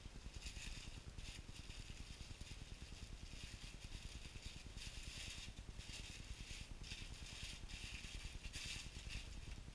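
Paper and thin foam packing sheet rustling and crinkling in irregular bursts as it is unwrapped by hand, over a low steady hum.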